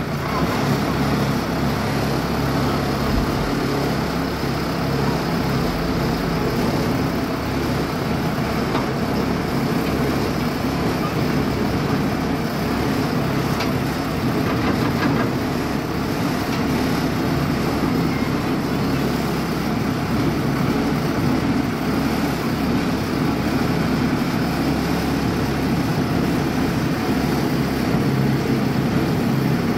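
Heavy engine running steadily at a constant speed, a continuous low mechanical hum with no revving.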